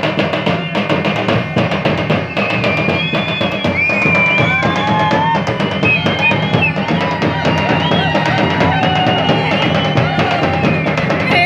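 Procession dhol drums beating a fast, steady rhythm. From about two seconds in, a high wavering melody line plays over the drumming.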